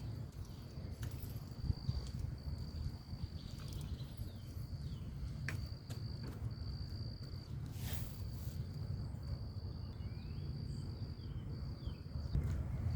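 An insect trilling at one steady high pitch in long stretches broken by short pauses, over a constant low rumble, with a few sharp clicks.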